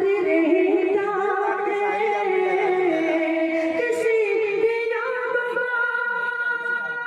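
A man singing a ghazal into a stage microphone, drawing out long held, ornamented notes.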